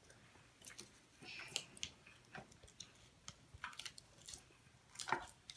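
Plastic Lego bricks and figure parts clicking and clattering as they are handled and fitted together, in scattered small clicks with a louder knock about five seconds in.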